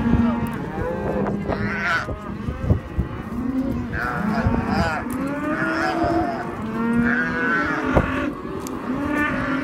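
Cattle bawling in a pen: many moos overlapping one after another, some low-pitched and some higher.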